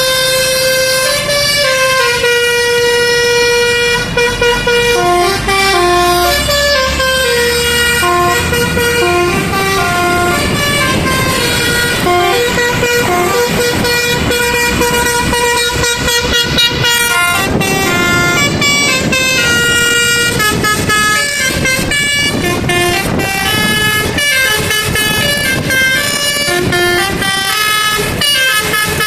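Basuri 'telolet' musical air horn on a truck or intercity bus, playing a long, loud tune of quick changing notes, with engine rumble beneath.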